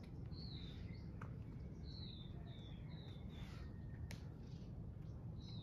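Birds chirping: short falling notes, several in quick succession about two to three seconds in and another near the end, over a faint low outdoor rumble. A single sharp click sounds about four seconds in.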